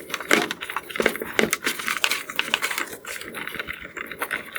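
Irregular scuffing and rubbing as a sanded plastic headlight lens is washed and wiped dry.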